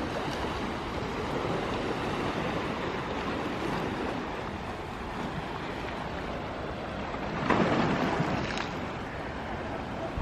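Sea waves washing on a beach, a steady rushing noise, with one louder wave surging for about a second near the end.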